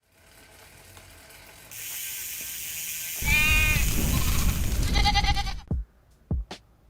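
A hiss that builds over the first few seconds, then a loud wavering goat bleat lasting about two seconds, followed by three sharp clicks near the end.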